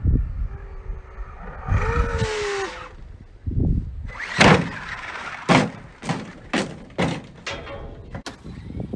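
Brushless Arrma Senton RC truck: the motor whines briefly with a slightly falling pitch, then about six hard thuds and knocks follow as the truck lands and bounces on the grass, the loudest two near the middle.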